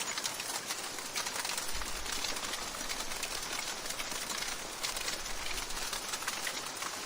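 Hailstones falling and striking a hard surface: a dense, continuous patter of many sharp ticks over a hiss.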